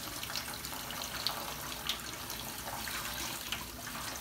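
Kitchen faucet running steadily into a stainless steel sink, the water splashing as a head of hair is rinsed under the stream.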